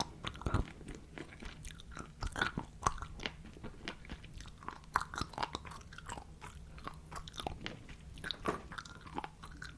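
ASMR mouth sounds close to the microphone: many quick, irregular wet clicks and smacks of lips and tongue.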